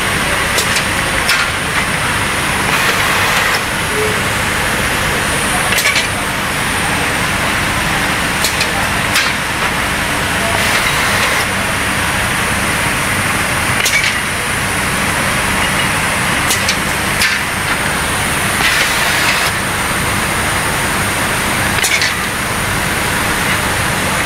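Ketchup-bottle packing line running: conveyor and bundling machine with a steady hum and a high whine, and a sharp clack or short air hiss every couple of seconds as the machine cycles.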